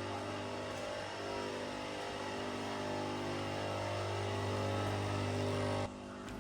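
A steady low hum with even overtones, like a motor or engine running, that cuts off abruptly near the end.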